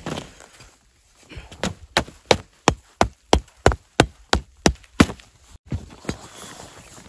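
The back of a hatchet hammering a wooden stake through a tarp corner: about a dozen sharp blows, roughly three a second, stopping about five seconds in.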